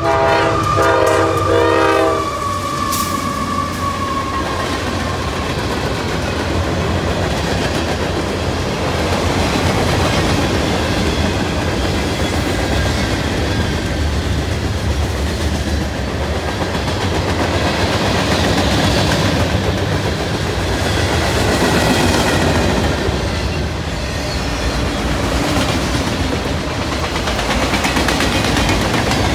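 Locomotive air horn sounds a chord for about two seconds as the lead GE diesel locomotives of a CSX manifest freight train approach. The train then rolls past steadily: diesel rumble and the clickety-clack of freight car wheels over the rail joints.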